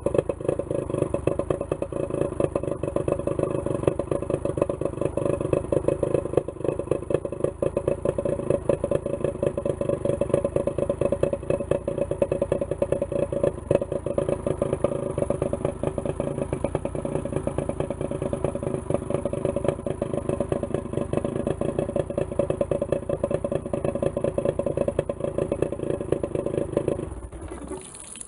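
1973 Johnson 50 hp two-stroke outboard engine, cowling off, running steadily with a fast, even firing beat, then cutting off suddenly about a second before the end, leaving the rush of its hose water supply.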